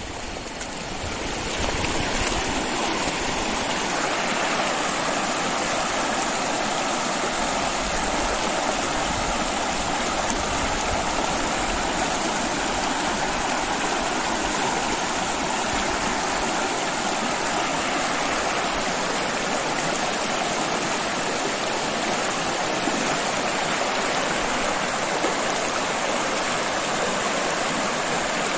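Fast-flowing river rushing over shallow rapids: a steady, even rush of water that swells up during the first couple of seconds and then holds.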